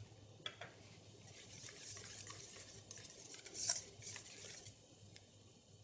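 Faint stirring of sauce in a stainless steel bowl: soft scraping with a few light clinks of the utensil against the metal, the loudest about two-thirds of the way through.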